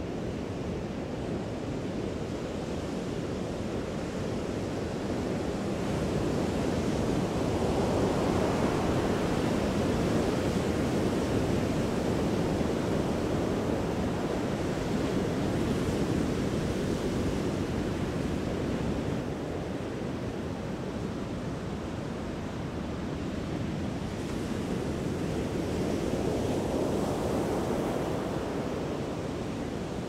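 Large ocean waves breaking: a continuous rush of heavy surf that swells louder for several seconds from about a fifth of the way in, and again near the end.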